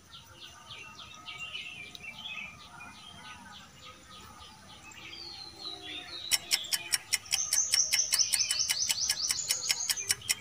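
Birds chirping in the background. About six seconds in, a countdown-timer sound effect starts over them: rapid, evenly spaced ticks, about five a second, with a pulsing high chirp.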